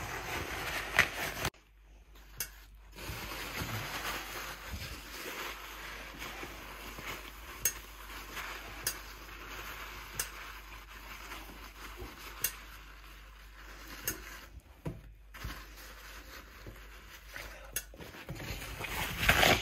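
Paper tissue rubbing and wiping around the inside of a stainless steel electric skillet: a steady scratchy scrubbing with scattered light clicks on the metal. A louder knock comes near the end.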